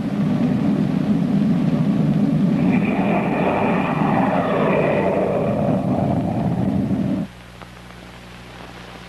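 Loud rumbling, roaring sound effect with a faint high whine through its middle, cutting off suddenly about seven seconds in. A steady low electrical hum follows.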